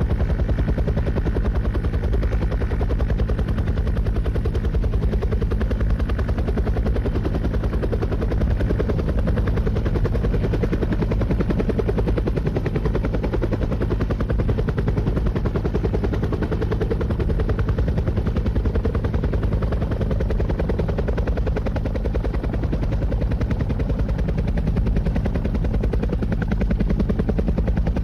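Helicopter running steadily: a rapid, even beating of the rotor blades over a steady engine hum.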